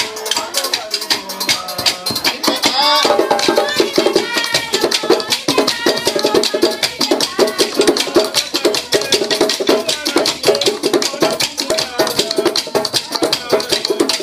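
Live West African hand drumming with shakers keeping a fast, even rhythm; a group of voices starts singing about two and a half seconds in and carries on over the drums.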